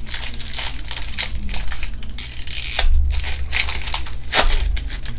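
Foil wrapper of a Panini Prizm UFC trading-card pack being torn open and crinkled by hand. It makes an irregular run of crackling rips and rustles, loudest about three seconds in and again near the end.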